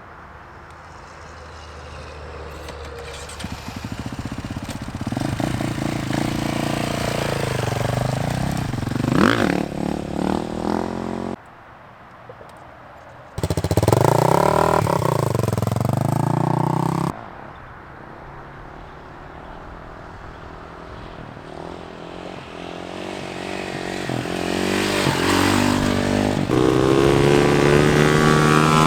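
Dirt bike engines revving up and down as the bikes ride past, the pitch rising and falling, with sudden jumps in sound where clips are cut together. Near the end an engine grows louder and holds a steady high note.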